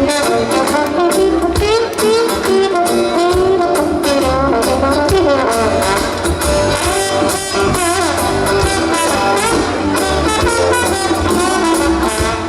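Live band music featuring a trombone solo: a brass melody moving up and down over guitar, bass and drums.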